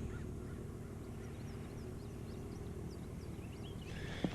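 Small birds chirping faintly in short, quick notes over a steady low background noise, with a couple of sharp clicks near the end.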